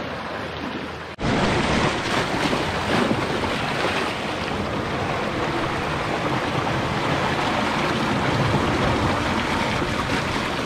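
Seawater rushing and foaming down a narrow rock gully, a loud, close, continuous rush of white water. For about the first second there is only a quieter, steady wash of sea and wind, which cuts off abruptly as the loud rush begins.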